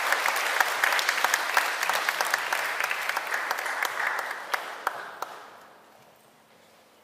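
Audience applauding with a dense patter of claps that thins out and dies away about five to six seconds in.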